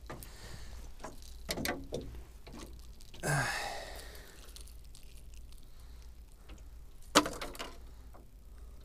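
Hands unhooking a just-caught fish from a lure in a metal boat: scattered small clicks and knocks, a breathy exhale about three seconds in, and one sharp knock about seven seconds in.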